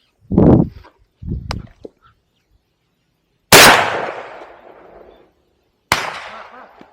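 Two shotgun shots about two and a half seconds apart, each with a long echoing tail. The second is a little quieter than the first. Before them come two short, duller sounds.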